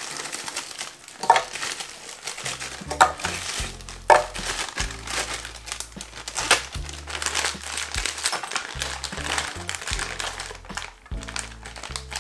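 Plastic freezer bags crinkling as frozen banana slices and frozen mixed berries are handled and poured out, with a few sharp knocks of frozen fruit dropping into a blender jar and a metal measuring cup. Background music with a low bass line plays throughout.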